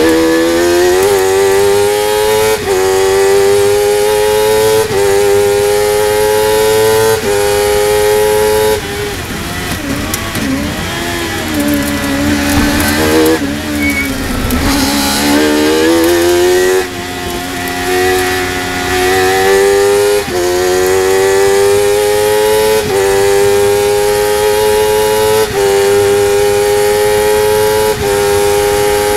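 Honda CBR1000RR inline-four motorcycle engine of a Spire GT3 sports racer, heard onboard, revving hard through a run of upshifts: the pitch climbs, then drops at each gear change about every two seconds. Around the middle the revs fall and waver while the car slows for a bend, then the engine pulls up through the gears again.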